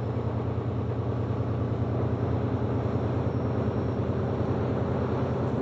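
Ex-NS 2400-series diesel-electric locomotives passing slowly, a steady low engine drone with a fast even throb; only one of the coupled pair has its engine running, the other is hauled dead.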